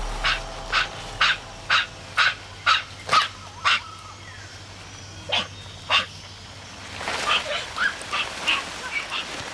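Crested black macaques giving a run of short, sharp bark calls, about two a second, then two more after a pause, and a faster chatter of calls near the end. These are the troop's calls at a python that is retreating.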